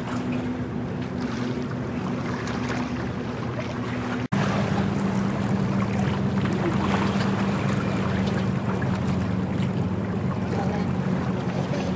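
Steady drone of a boat's diesel engine over wind buffeting the microphone and water washing. The sound drops out briefly about four seconds in, and the drone comes back slightly lower in pitch.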